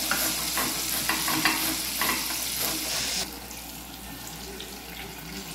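A carrot grated on a stainless steel box grater, repeated rasping strokes; about three seconds in it gives way to the quieter, steady sizzle of breaded tilápia fillets deep-frying in hot oil.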